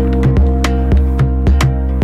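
Background music with a steady drum beat, about two hits a second, over held low notes.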